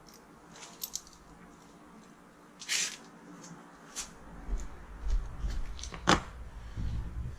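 Close handling noise: scattered clicks and rustles, with a louder rustle near the start and a sharp click about six seconds in.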